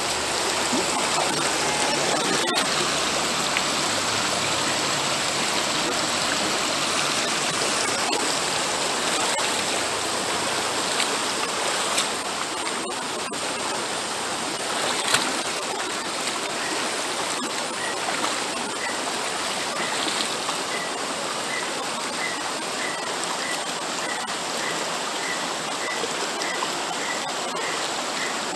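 Shallow rocky river rushing steadily over stones. In the second half a short, high chirp repeats about twice a second.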